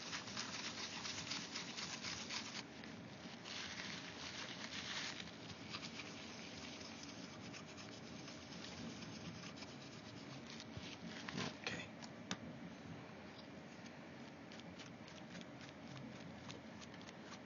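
Old thermal paste being wiped off a laptop's heatsink by hand: steady rubbing and scratching with fine small ticks, busiest in the first five seconds.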